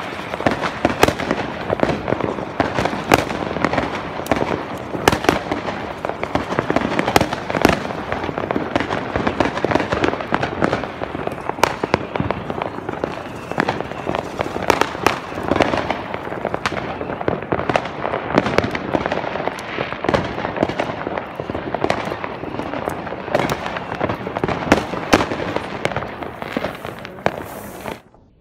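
Fireworks and firecrackers going off all around: many sharp bangs over a dense, continuous crackle. It cuts off suddenly near the end.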